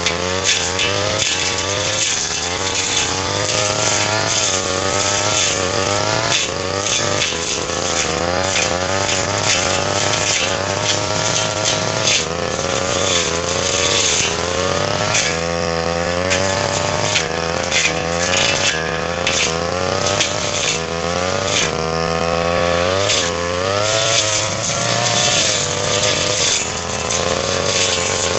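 Petrol brush cutter engine running hard, its pitch rising and falling over and over as the spinning blade works through fern grass, with the rasp of cut vegetation.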